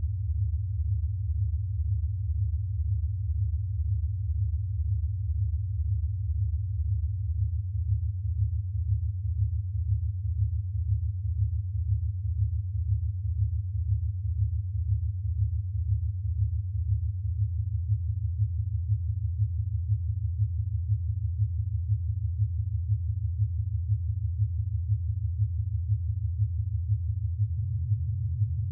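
Ten pure sine tones at prime-number frequencies sounding together as a low, pulsing hum below about 150 Hz. As the set of primes shifts, the lowest tone fades out a little past halfway and a slightly higher tone comes in near the end.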